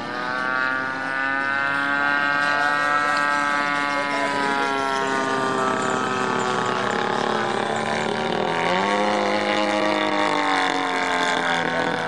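The large-scale RC biplane's GP-123 gas engine and propeller running in flight. Its pitch drifts slowly down for most of the first seven seconds, then drops and climbs again about eight and a half seconds in.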